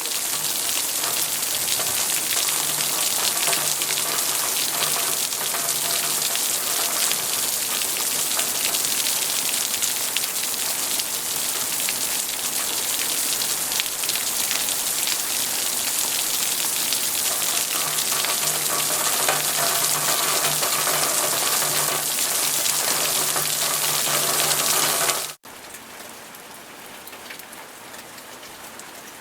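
Steady rain falling, an even hiss of many drops. About 25 seconds in it cuts abruptly to a much quieter, lighter rain.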